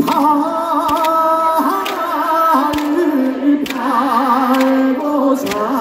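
A male trot singer singing into a microphone over a concert PA, holding long notes with a wavering vibrato.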